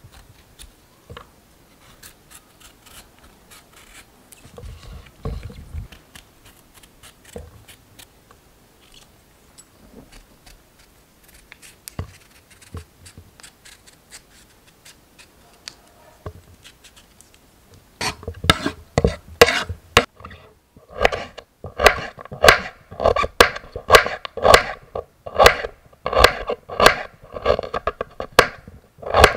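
A kitchen knife scraping the skin off raw carrots on a bamboo cutting board, with faint scrapes and light taps. About two-thirds through, the knife starts slicing a carrot into rounds: crisp cuts through the carrot onto the board, about two a second and much louder than the scraping.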